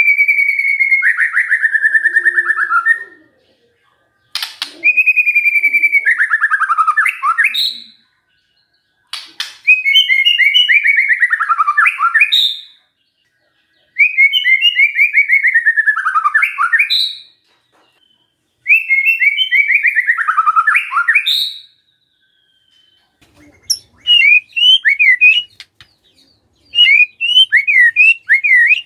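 White-rumped shama singing loudly: five phrases of about three seconds each, each sliding down in pitch into a fast trill, with short pauses between them. In the last few seconds the song turns into quick, choppy high chirps.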